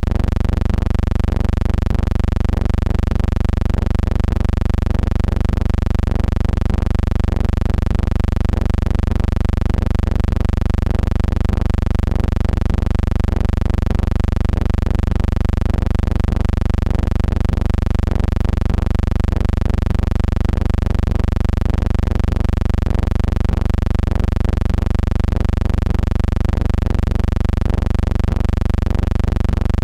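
A steady low hum with many evenly spaced overtones, unchanging throughout, with no sound from the game itself.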